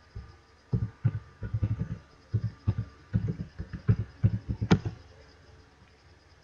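Computer keyboard being typed on: an irregular run of dull key taps over about four seconds as a password is entered, ending in one sharper click.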